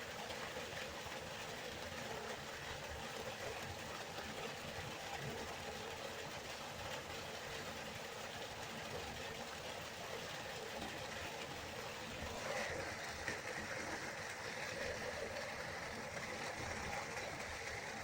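Waterfall: a steady rush of falling water. About twelve seconds in it turns brighter and a little louder.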